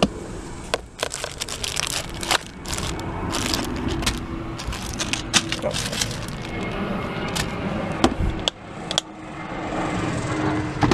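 Clear plastic Plano tackle boxes being pulled out and shuffled in a boat's storage compartment: repeated clacks, clicks and rattling of hard plastic against plastic and the hatch.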